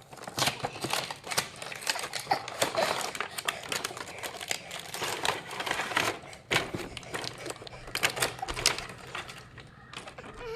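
Parcel packaging being torn open and handled by hand: a dense run of sharp clicks, crackles and crinkles.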